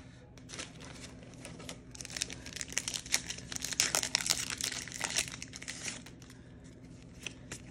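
Foil wrapper of a football trading-card pack crinkling as it is torn open by hand. The crackle is sparse at first, thickens about two seconds in and thins out again near the end.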